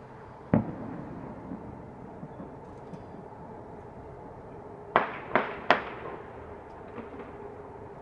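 Distant celebratory gunfire: a single shot about half a second in, then three quick shots about five seconds in and a faint one after, over a steady city hum.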